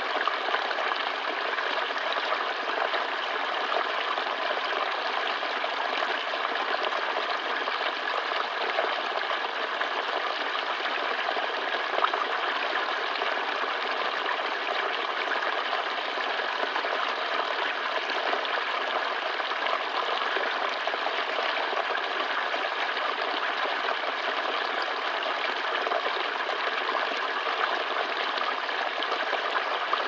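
A small stream pouring over a low rock ledge into a shallow pool: a steady, unbroken splashing and trickling of water.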